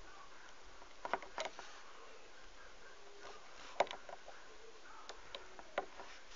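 Scattered light clicks and taps of a crochet hook and rubber loom bands on a plastic band loom, as the bands are stretched onto the pegs and hooked over; the loudest click is about four seconds in.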